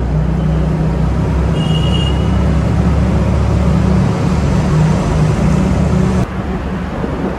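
Wind buffeting the microphone and road noise from a moving scooter, heavy and rumbling, with a short high beep about two seconds in. The rumble drops away suddenly about six seconds in.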